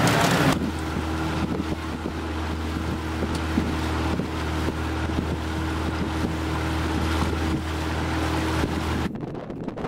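Small motorboat's engine running steadily at cruising speed, a low even drone with the hiss of the hull through the water; it cuts off abruptly about nine seconds in.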